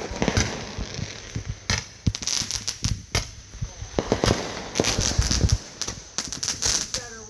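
Fireworks going off: an irregular string of sharp bangs and crackles, thickest around four to six seconds in.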